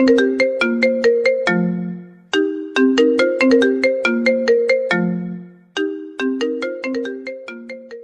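Mobile phone ringtone melody of quick, struck notes. The same short phrase repeats about every three and a half seconds, each time ending on a longer low note, and it fades near the end.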